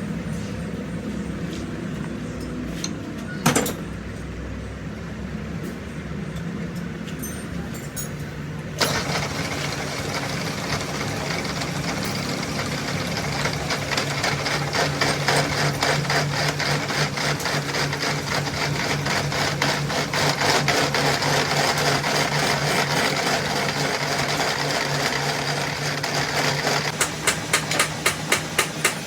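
An engine running with a steady low hum. About nine seconds in, a louder, rapid mechanical clatter suddenly joins it. Near the end come sharp, evenly spaced knocks, about three a second.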